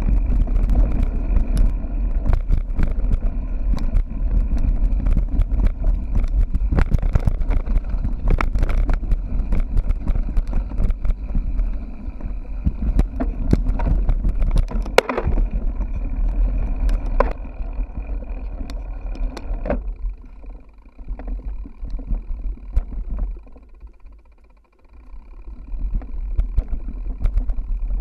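Mountain bike ridden fast over rough ground, heard through a bike-mounted action camera: a constant low wind rumble on the microphone with frequent rattling clicks and knocks from the bike. It eases off briefly near the end, then picks up again.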